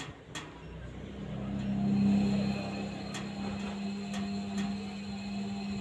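Washing machine running its wash cycle: a steady motor hum that swells about a second in and then holds, with scattered light clicks.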